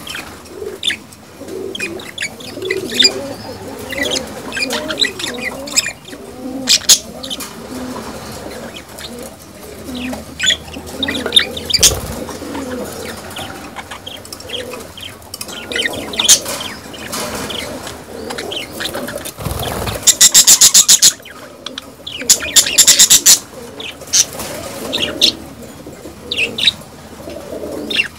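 A pair of budgerigars chattering: a steady run of short sharp chirps and clicks over low wavering cooing. A little past two-thirds of the way through come two loud, harsh, rapid buzzing bursts, each about a second long.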